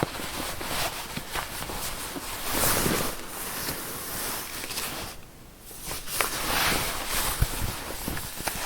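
A zipper being zipped and unzipped over and over: rasping strokes with clicking teeth, and a brief lull about five seconds in.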